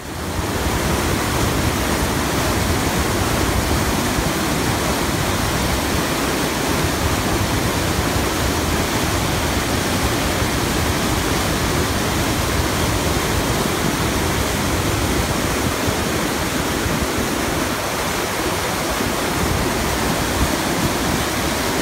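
Mountain river rushing through rapids, white water churning over and between boulders: a loud, steady rush of water.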